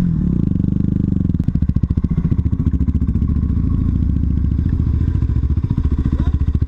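Single-cylinder four-stroke dual-sport motorcycle engine. It comes down in revs at the start, then runs at low, steady revs.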